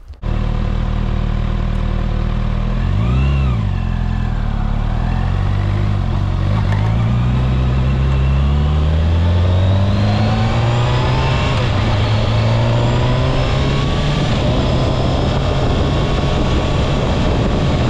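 Kawasaki ZX-6R's inline-four engine running, blipped once about three seconds in, then climbing slowly in pitch and levelling off.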